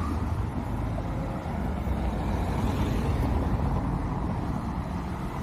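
Steady street traffic noise: cars running along the road beside the sidewalk, heard as a continuous low rumble.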